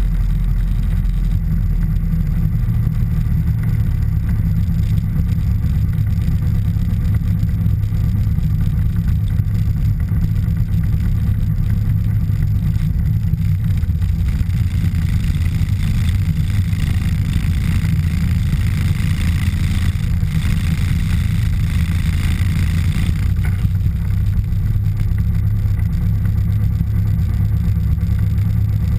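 Piper PA-28 Warrior III's 160 hp Lycoming O-320 flat-four engine and propeller running steadily at low taxi power, heard inside the cabin as a deep, even drone. For several seconds in the middle the sound turns a little brighter and hissier.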